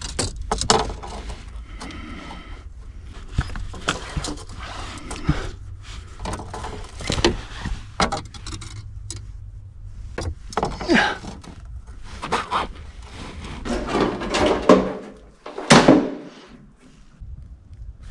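Irregular clicks, knocks and rustling from hands-on electrical installation work, handling cable and parts, with a louder knock about a second in and two louder knocks near the end.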